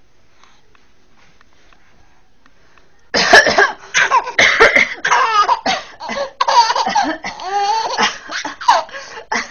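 After about three seconds of quiet, coughing and a baby's laughter break out in quick repeated bursts.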